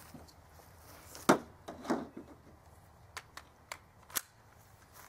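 Handgun being handled and readied to fire: two sharp metallic clacks a little over a second in, then several lighter clicks.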